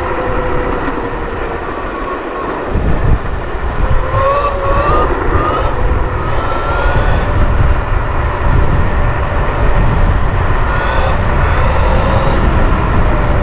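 Rovoron S7 84 V electric scooter's motors whining as it rides, the pitch rising and falling repeatedly with the throttle and speed. Under the whine there is a steady low rushing noise that grows louder about three seconds in.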